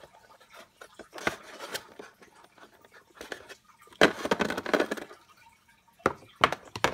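Small plastic toys clicking and clattering against a plastic tray as they are handled, with a louder burst of close handling noise about four seconds in.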